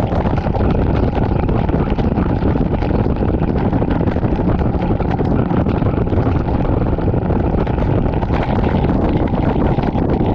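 Loud, steady wind rush on the microphone of a bass boat running at speed.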